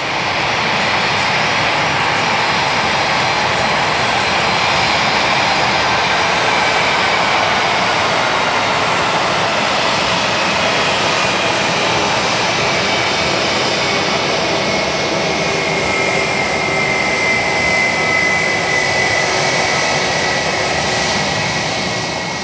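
Jet airliner's engines running loud and steady as it rolls along the runway. A high whine sinks slightly in pitch in the second half.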